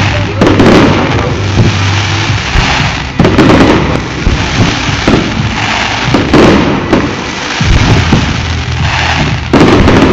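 Fireworks display: aerial shells bursting one after another, loud booms every second or two with crackling in between. Sharp, loud bursts come about three seconds in and again near the end.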